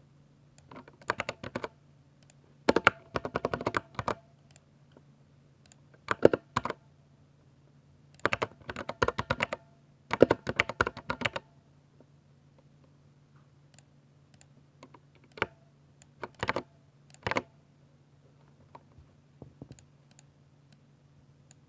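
60% mechanical keyboard with silver switches being typed on in quick bursts of keystrokes, each burst a second or two long with short pauses between. After about twelve seconds the typing thins to a few scattered single presses, over a faint steady low hum.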